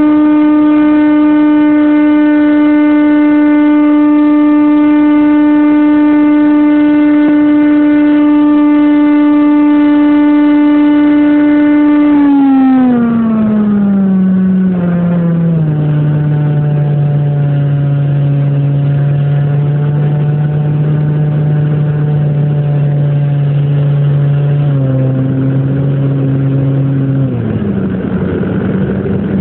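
Model airplane's motor and propeller running at a steady high-pitched drone, then dropping in pitch in steps a little under halfway through as the throttle is eased back, and running on at a lower, deeper tone before falling again near the end.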